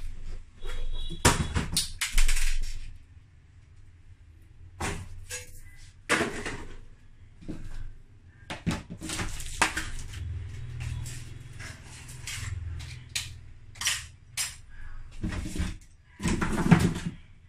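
Handling clatter: welding leads, clamps and tools knocked, rattled and set down on a hard floor, a string of separate knocks with short gaps between them.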